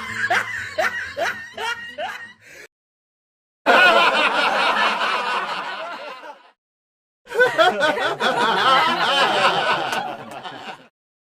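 Three laughter sound-effect clips in a row, with a second of dead silence between them: first a rhythmic laugh fading out, then two fuller bursts of laughing.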